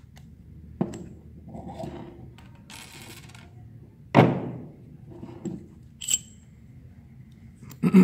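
Steel motorcycle gearbox parts (gears, washers, shaft and circlip pliers) being handled and set down on a wooden tabletop: a few dull knocks, the loudest about four seconds in, a short scrape around three seconds, and a brief metallic ping just after six seconds.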